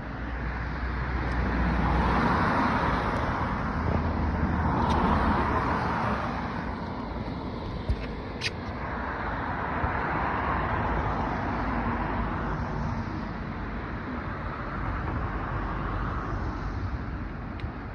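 Outdoor background noise, a steady rush that swells and fades several times, with one sharp click about eight and a half seconds in.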